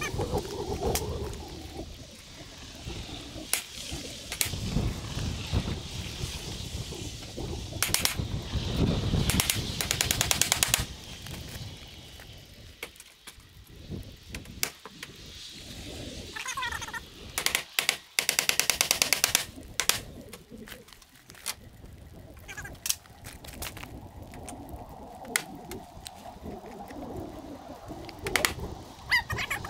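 Milwaukee cordless drill driver running screws into steel siding trim, in short bursts of rapid, even clicking: about ten seconds in, again around eighteen seconds, and near the end.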